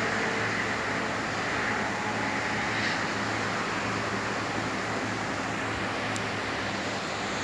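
Steady rain falling over the city, an even hiss, with a faint low hum underneath.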